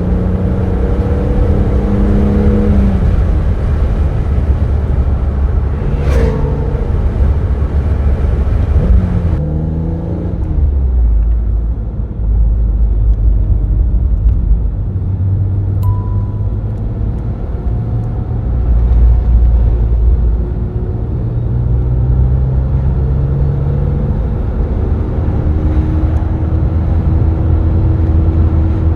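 BMW Z3 M Roadster's 3.2-litre inline-six running on the road, revs dropping early on and climbing again later, over steady road and tyre rumble. A brief sharp click about six seconds in.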